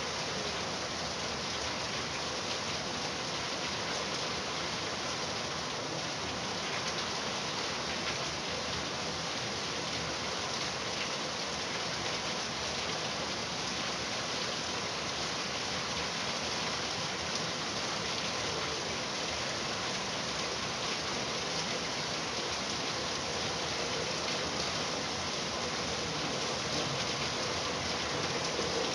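Steady rain falling on a surface, an even dense patter without let-up.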